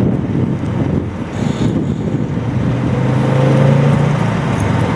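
Steady engine noise with a low hum, swelling a little about three seconds in.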